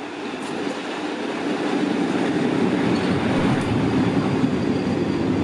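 State Railway of Thailand GEA-class diesel-electric locomotive No. 4540 passing close by, its engine growing louder over the first two seconds. Its passenger coaches follow, rumbling past steadily on the rails.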